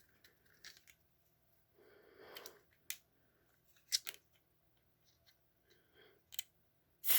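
Small handling noises: a few sharp plastic clicks and soft rustles as a smoke detector is handled. Right at the end a loud, even hiss starts suddenly.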